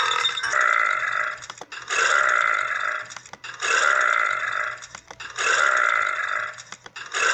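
A person burping, a series of about five drawn-out burps of roughly a second each, coming in an even rhythm about every second and a half to two seconds.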